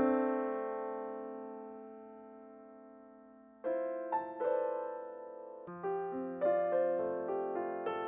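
Background piano music. A held chord slowly dies away, then the piano starts again with new chords about three and a half seconds in, and a low bass note joins a couple of seconds later.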